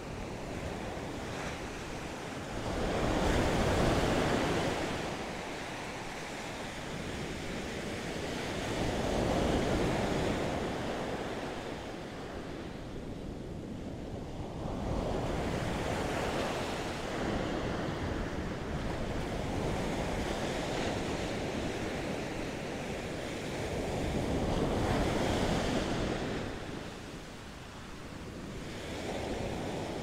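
Ocean surf breaking on a sandy beach: a steady rush of waves that swells louder about four times, every six seconds or so, with some wind on the microphone.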